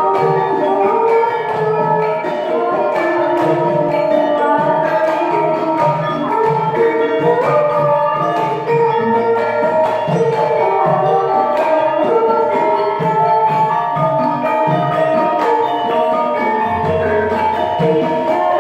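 Javanese gamelan ensemble playing a gending. Bronze metallophones and small kettle gongs ring in layered patterns over a low drum pulse, with a deep gong tone sounding near the end.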